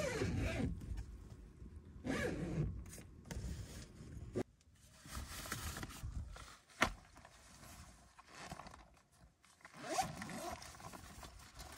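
Zippers on the rooftop tent's fabric window panels being pulled in several separate strokes, with nylon fabric rustling between them. There is a sharp click a little before the middle.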